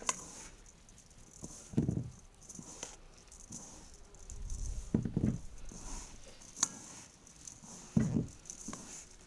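Dry crumble mix with oats being stirred and handled in a mixing bowl: light pattering and rattling of the loose crumbs, with three soft knocks.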